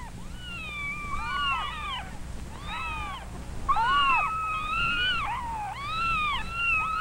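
Five-day-old kittens mewing: a near-continuous string of short, high cries, each rising and falling in pitch, sometimes two at once. They are crying for their mother.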